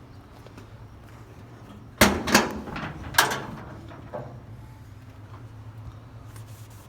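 A door being shut: three sharp knocks within about a second and a quarter, then a fainter knock a second later.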